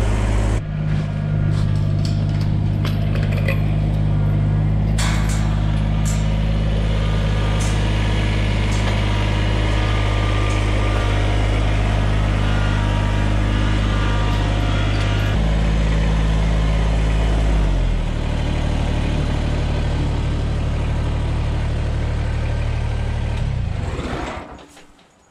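Kubota compact tractor's diesel engine running steadily as it drives, with a few sharp clicks and rattles early on; its note drops about two-thirds of the way through, and it fades out near the end.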